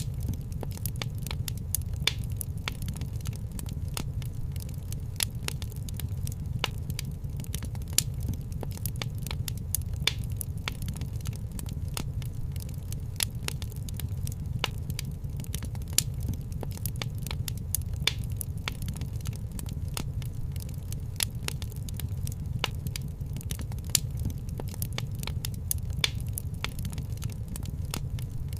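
Fireplace fire crackling: a dense, irregular stream of sharp pops and snaps over a steady low rumble.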